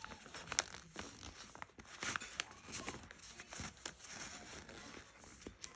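Sheet of paper rustling and crinkling faintly as it is folded and creased by hand, with scattered brief crackles.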